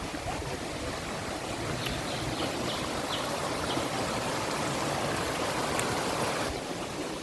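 Steady rush of flowing forest river water, swelling slightly and then easing a little near the end.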